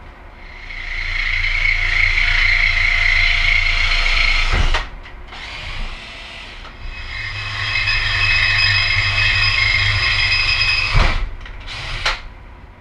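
Cordless drill boring holes through a steel helmet-hanger bracket in two runs of about four seconds each, with a short pause between. Each run ends with a sharp knock.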